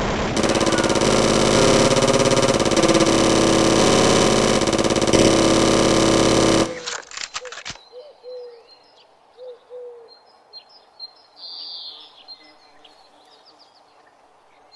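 A long, unbroken burst of machine-gun fire sound effect, loud and rapid, cuts off abruptly about seven seconds in. It is followed by faint bird chirps over quiet outdoor ambience.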